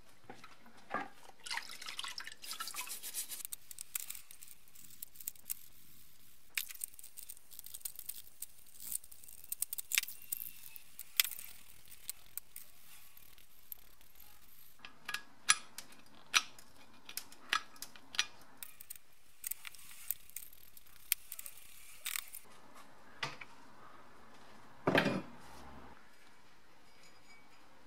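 Small brake caliper parts being swished and moved about in a bucket of liquid degreaser, making irregular splashes, drips and small clinks. A brief louder clunk comes near the end.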